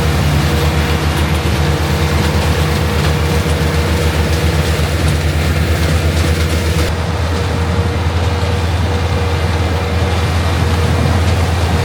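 Heavy diesel farm machinery running steadily: a deep engine drone with a steady whine over it. About seven seconds in, the hiss on top drops away suddenly.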